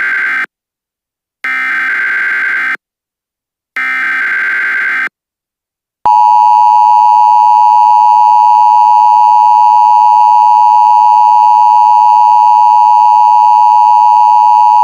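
Emergency Alert System signal: the end of one SAME header data burst and then two more, each about a second long with about a second of silence between. About six seconds in, the steady two-tone EAS attention tone starts and holds.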